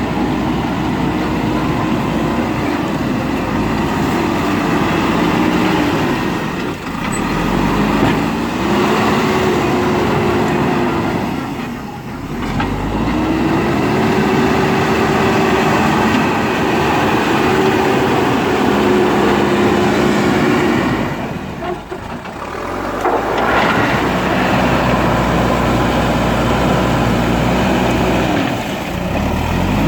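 JCB backhoe loader's diesel engine running under load. The revs climb, hold for several seconds, then fall back, several times over, as the hydraulics work the digging arm and bucket.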